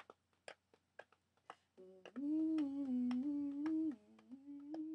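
A person humming a stepping tune with the mouth closed, starting about two seconds in and breaking briefly near the end. Light ticks or taps come about twice a second.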